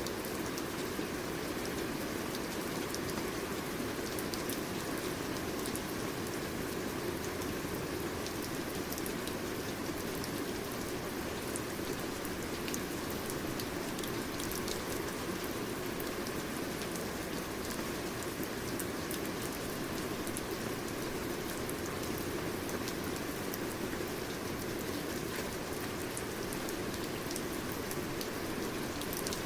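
Steady rain falling on a surface, an even hiss with many small drop ticks and no change in strength.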